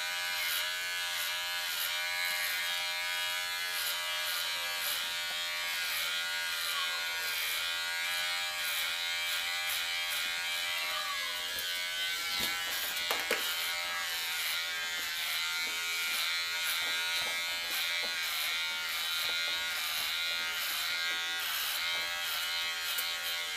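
Unix electric hair clipper with a 3 mm guard running steadily as it cuts the hair on the side of the head. Its hum dips briefly in pitch a few times as the blade takes up hair.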